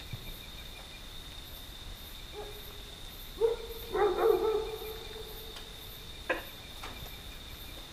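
A crying-like whimper with a held pitch: a short one about two seconds in, then a longer, louder one a second later. A steady thin high tone runs underneath, and there is a single click near the end.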